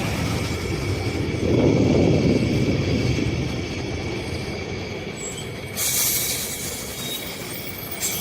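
Scania K270UB city bus running past, its engine and tyre noise swelling for a couple of seconds with a steady high whine underneath. A short burst of air hiss comes about six seconds in, like an air-brake release.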